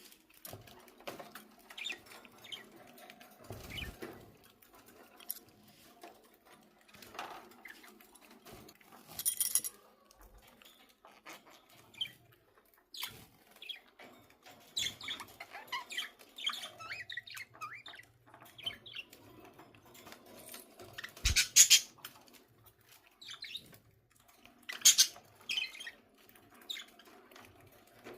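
Pet budgerigars chirping and chattering on and off in short, high calls, with a few louder bursts.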